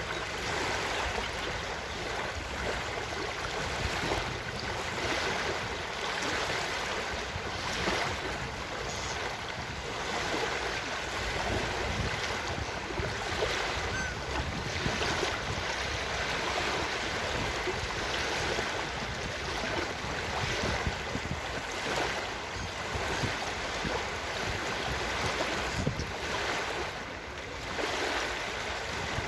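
Ocean surf washing onto a beach: a steady rushing noise that swells a little every second or two.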